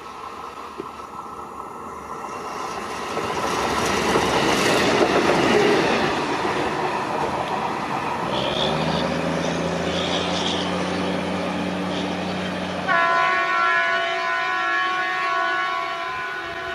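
Indian Railways locomotive running light (without a train) passing by. Its rolling noise swells to a peak about five seconds in, then settles into a steady low drone. About thirteen seconds in its horn starts, a held chord of several tones that carries on.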